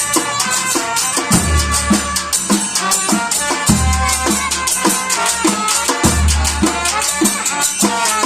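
Batucada percussion band playing a dense, steady groove: drums and shakers, with deep bass notes that come back about every two and a half seconds.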